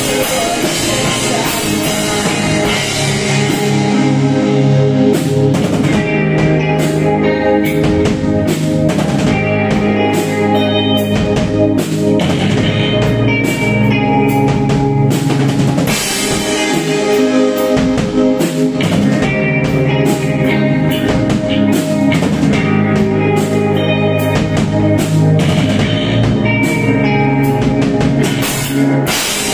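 Live rock band playing loud and without a break: a drum kit keeping a steady beat under electric guitars.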